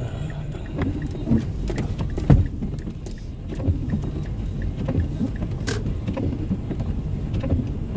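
Car cabin noise while driving: a steady low road and engine rumble with scattered light knocks and clicks, the sharpest about two seconds in.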